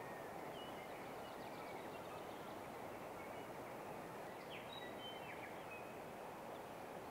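Steady, quiet rush of flowing river water, with a few faint short bird chirps scattered through it.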